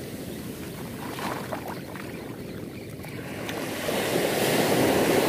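Small surf washing up a beach, quieter at first, then a wave's wash swelling about four seconds in.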